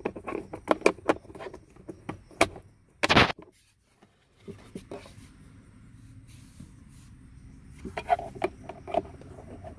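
Hard plastic clicks and knocks from a Kia Niro's glove box as it is pushed up and its side stopper knob is fitted back into the hole, with a loud rubbing scrape about three seconds in and a few more knocks near the end.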